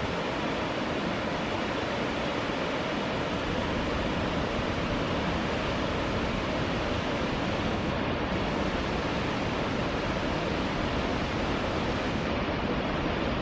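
Floodwater rushing out through all of Imawatari Dam's spillway gates at once and churning in the river below, a steady, unbroken rushing noise.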